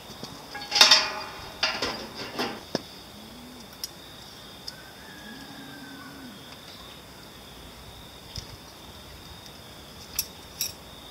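Metal clinks and scrapes from the steel hanging hooks and plate as a smoked turkey is lifted out of a barrel smoker and set down, with a loud burst about a second in and scattered sharp clicks after.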